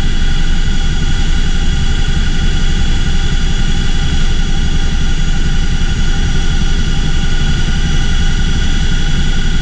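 Cockpit noise of a CH-47F Chinook tandem-rotor helicopter in flight: its two turboshaft engines and rotors make a loud, steady low rumble, with a steady whine of several high tones on top.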